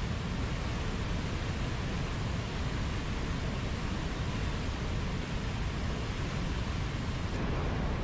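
Mountain waterfall: a steady, even rush of falling water, deep and unbroken.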